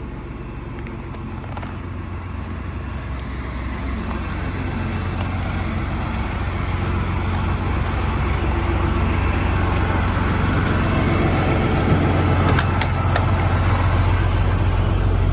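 Tractor-trailer truck's engine running with a steady low hum, growing steadily louder.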